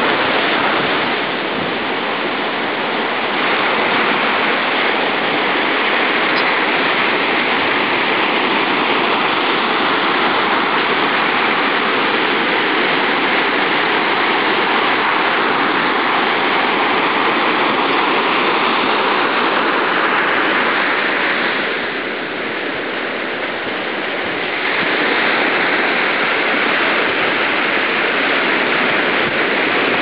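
Atlantic surf breaking and washing up a sandy beach: a steady rushing wash that eases off for a few seconds about two-thirds of the way through, then swells again.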